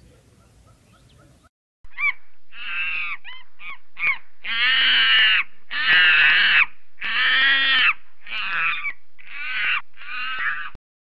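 Macaque monkeys calling: a run of about ten loud, high calls, a few short ones and then several that last about a second each.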